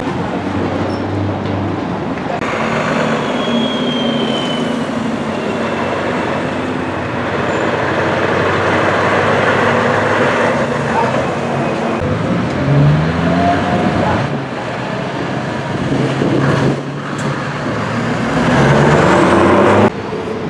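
Heavy diesel tractor units passing close by in traffic over steady road noise. Their engine pitch climbs as they pull away, twice, and a loud pass near the end cuts off suddenly.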